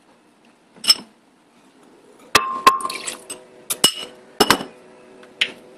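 Kitchen utensils clinking and knocking against glass dishes, a string of sharp clinks with some ringing, thickest in the second half; a low steady hum sets in about three seconds in.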